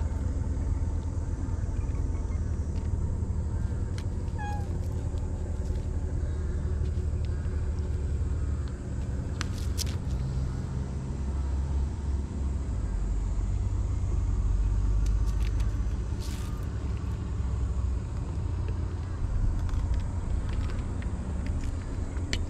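Wind buffeting the microphone: a steady low rumble, heaviest a little past halfway, with a few faint taps and clicks.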